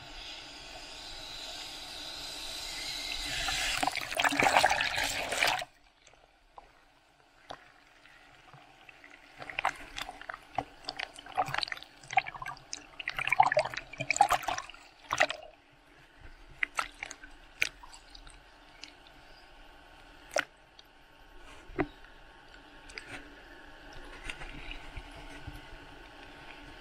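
Ocean surf water rushing and splashing at a camera held in a waterproof case at water level: a wash that swells over the first five seconds and cuts off abruptly, then irregular sloshing, slaps and clicks of water on the housing, busiest in the middle and thinning out toward the end.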